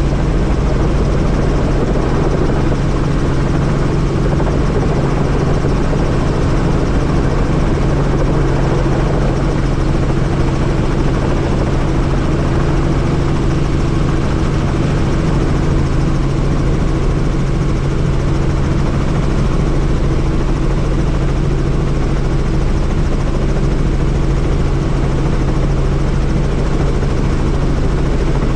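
Helicopter rotor and engine running steadily in flight, a constant loud drone with no change in pitch or level.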